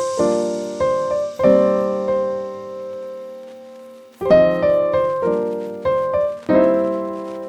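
Piano music: chords struck one after another and left to ring out. One chord about a second and a half in is held, fading for over two seconds before a new run of chords begins.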